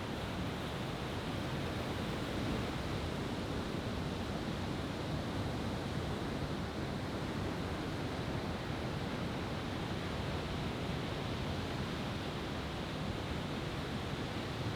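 Steady rushing noise with no firework bursts and no changes in level.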